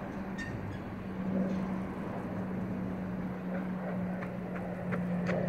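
A vehicle engine idling, a steady low hum on one pitch, with a few footsteps on gravel near the end.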